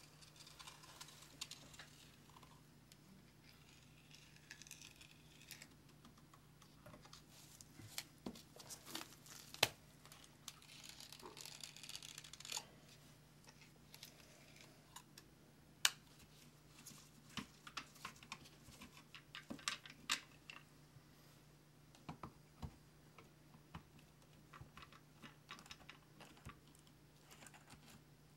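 Faint handling noise: scattered clicks and crinkling, rustling sounds that come and go, over a low steady hum.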